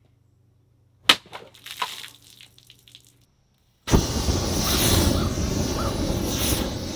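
A sharp strike about a second in, followed by scattered crackles. Then, about four seconds in, a flaming sword's blade bursts alight, with a sudden loud, steady rush of flame.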